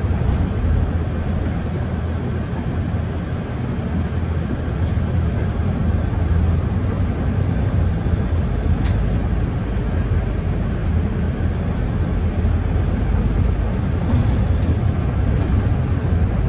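Mercedes-Benz Citaro facelift city bus running with a steady low rumble, plus a single click about nine seconds in.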